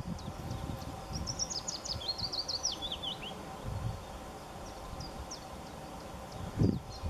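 A small songbird singing outdoors: a quick phrase of high chirps that steps down in pitch about a second in, then a few single high notes. Under it is a low background rumble.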